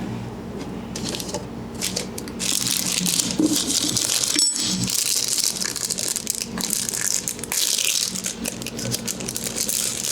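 Close-miked head-massage sounds: dense scratchy crackling and rattling with many quick clicks, briefly dropping out about four and a half seconds in.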